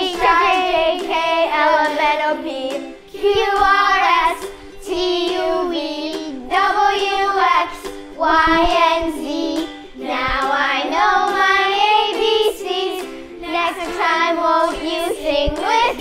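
Children singing a song over backing music, in short phrases with gaps between them.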